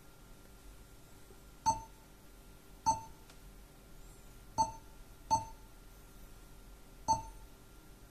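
Touch-feedback beeps from a JOYING Android car stereo head unit as its touchscreen is tapped: five short, identical beeps at uneven intervals, each a brief pitched blip.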